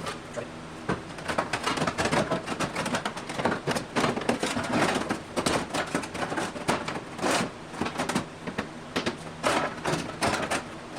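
Hammer-and-dolly work on the sheet-metal panels around a VW Beetle's spare tire well: rapid, irregular metal taps and knocks, several a second, as the bent panels are beaten back into place.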